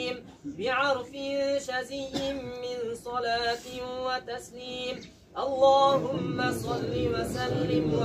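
Singing voice carrying a melody with long held notes and wavering pitch. It breaks off briefly about five seconds in, then comes back fuller with a low background under it.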